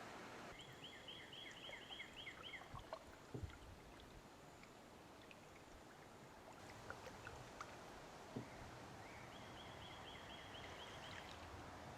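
Quiet river ambience with a bird calling a quick run of chirps twice, about ten notes each time, and a few soft knocks, typical of a paddle touching a canoe.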